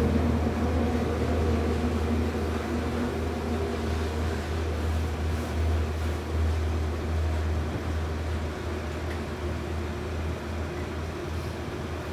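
Steady low hum and rumble inside a Tokyu 8500 series subway car, slowly growing quieter.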